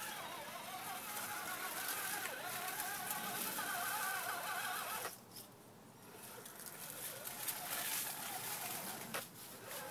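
Electric motor and gears of a radio-controlled rock crawler whining, the pitch wavering up and down with the throttle as it climbs over rocks. The whine cuts out for about a second around halfway through, then resumes.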